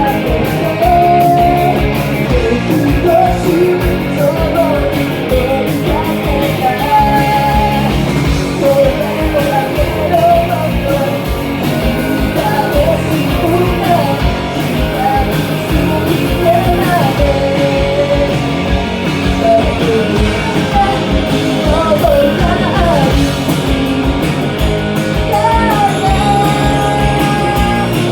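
Rock song performed live: a woman singing the melody over a loud rock backing of guitar and drums.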